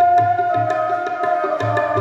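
A young woman singing a long held note that slides slightly downward, accompanied by a tabla playing a steady rhythm.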